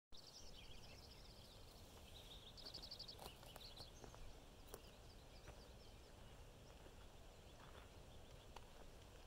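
Quiet outdoor ambience under a low steady rumble, with faint distant birds chirping and one rapid trill about three seconds in. A few faint ticks follow.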